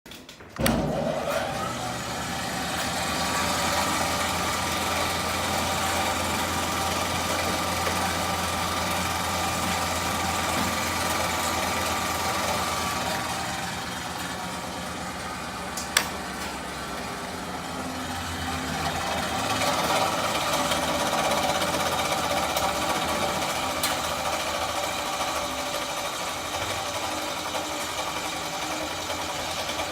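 An Akiyama V16 food-processing band saw running without a blade on its 200 V motor, switched on about half a second in. It then runs steadily with a low hum, dips a little in the middle with a single sharp click, and rises again.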